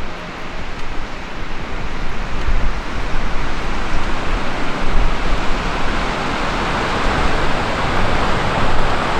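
Steady rushing noise of wind and ocean surf, with wind buffeting the microphone in uneven low thumps; it swells a little louder about halfway through.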